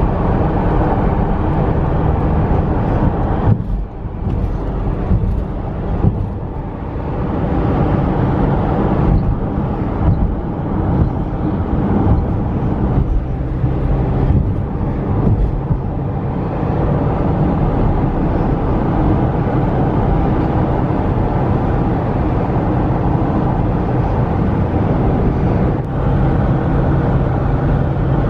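Steady road noise inside a car driving at highway speed: tyre roar and engine drone.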